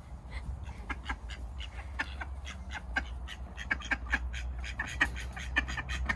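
Mallard ducks quacking in quick, irregular short calls, several a second, while being hand-fed grass.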